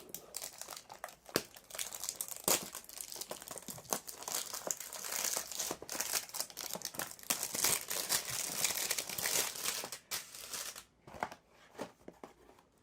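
Crinkly packaging being torn open and crumpled by hand, with a dense crackle and sharp snaps that thin out to scattered crinkles about ten seconds in.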